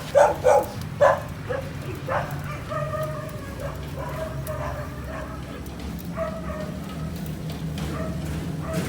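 A dog barks three times in the first second or so, then whines in a drawn-out, steady pitch, over a steady low hum.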